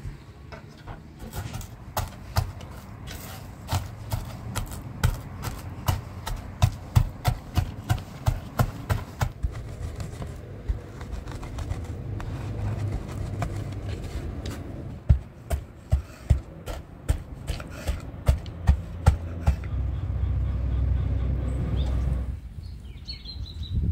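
Knife chopping on a cutting board: a steady run of sharp chops about two a second, a pause, then another run. A louder low rumble swells near the end.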